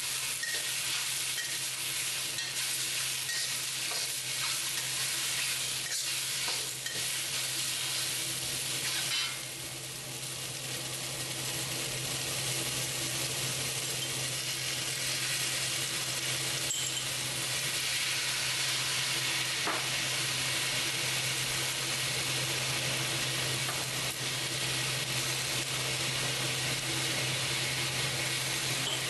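Rice noodle rolls and bean sprouts sizzling in a carbon-steel wok over a gas flame while a metal wok spatula scrapes and turns them, the scraping busiest in the first ten seconds. The sizzle dips briefly about nine seconds in, then holds steady over a low hum.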